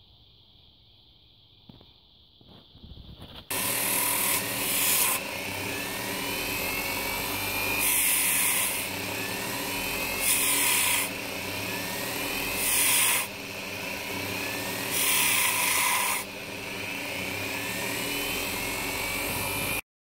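Workzone mini bench grinder switched on and running steadily, with five short loud bursts of grinding as a small cupelled silver-gold button is pressed against the grinding wheel. A few light handling clicks come before the motor starts, and the sound cuts off suddenly near the end.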